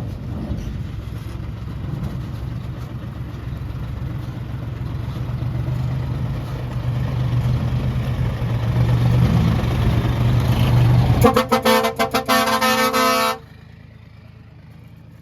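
Heavy diesel engine of a construction vehicle running and growing steadily louder. About eleven seconds in, a vehicle horn sounds in a quick series of toots for about two seconds, then everything cuts off abruptly.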